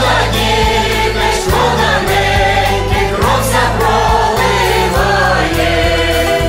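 A group singing a carol in chorus over instrumental accompaniment, with sustained bass notes underneath.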